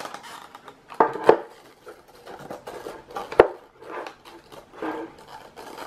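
Hard plastic box of an Intel Core i9-9900K processor handled and turned in the hands, giving light rustles and a few sharp clicks and knocks of its panels, the loudest about three and a half seconds in.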